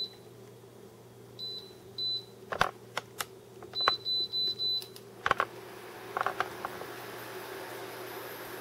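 Touch-control cooktop beeping as its buttons are pressed to switch it on and raise the heat: single short beeps, then four quick beeps in a row, with a few sharp taps in between. About six seconds in, a steady fan-like hiss comes on as the cooktop starts heating.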